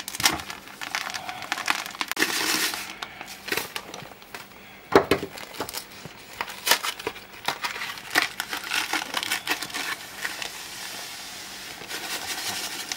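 Dry groundbait ingredients poured into a plastic bucket and handled by hand: semolina sliding out of a plastic bag near the start and breadcrumbs shaken from a cardboard box near the end, with packaging crinkling and many small knocks and rustles.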